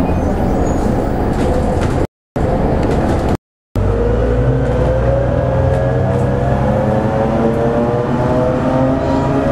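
Interior noise of an MCW Metrobus double-decker with a Gardner diesel engine under way, heard from the upper deck: a rough rumble, then from about four seconds in a whine rising steadily in pitch as the bus gathers speed, the sound of a worn planet gear in its transmission. The sound cuts out briefly twice before the whine starts.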